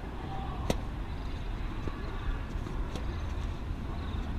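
Tennis ball struck with rackets during a rally: one sharp loud pop about a second in and another about three seconds in, over a steady low rumble.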